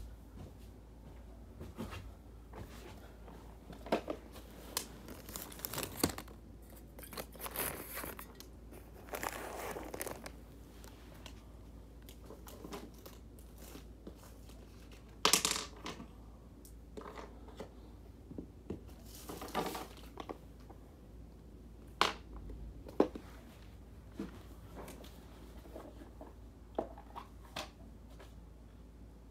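Intermittent rustling and crinkling of cardboard and paper packaging being handled, with scattered light clicks and knocks; the loudest rustle comes about fifteen seconds in, and two sharp clicks a little after twenty seconds.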